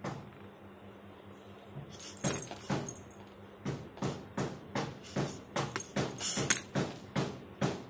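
Hand claps: a run of sharp, short claps, roughly two a second and uneven, starting about two seconds in, over a faint steady hum.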